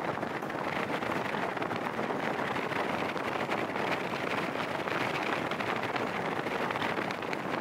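Steady rushing noise of a vehicle travelling on the road, with wind on the microphone.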